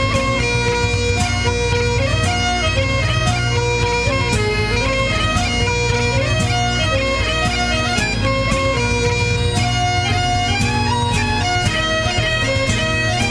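Bagpipes playing a melody over steady drones.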